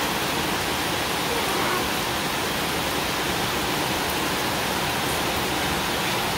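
Heavy rain pouring down steadily on a concrete driveway and garden plants, a constant even hiss.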